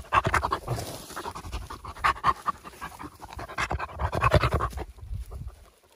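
Dog panting hard and fast close to the microphone, tired out from a long run. The panting stops near the end.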